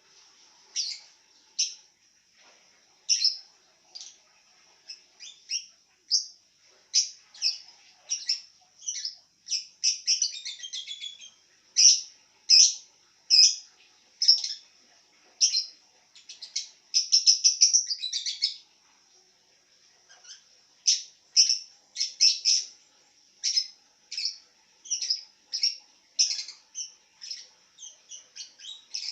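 Pet lovebird singing: a long string of short, high chirps, broken by fast chattering trills about ten seconds in and again around seventeen seconds.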